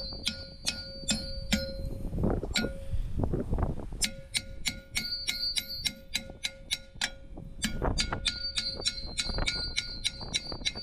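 A hammer repeatedly striking a rusted-on steel brake drum to knock it loose, about four blows a second with a short pause about three seconds in. Each blow clangs, and the drum rings on with a steady metallic tone between strikes.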